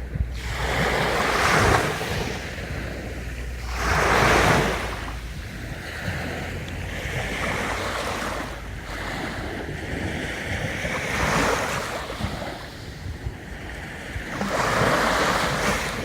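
Sea waves breaking on a beach, each wave a rush of surf that swells and falls away every few seconds, with a low wind rumble on the microphone in the first few seconds.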